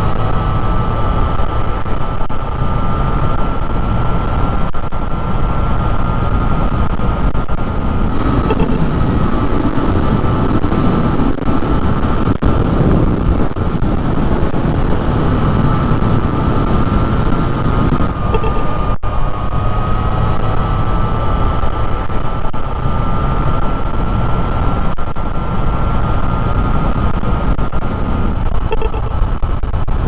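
Wind rushing over a motorcycle helmet at road speed, heard from inside the helmet, with a Triumph Trident 660's three-cylinder engine running steadily underneath. For about ten seconds from roughly a third of the way in, ridden without a scarf, the wind noise is fuller and deeper before settling back.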